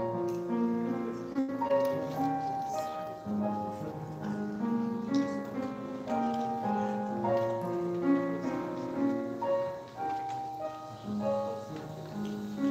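Grand piano playing a slow piece of held notes and chords.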